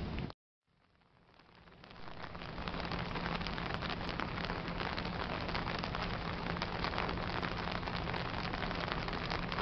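Steady rain falling, a dense patter of countless fine drops. It fades in over a couple of seconds after a brief drop-out near the start, with a faint steady low hum underneath.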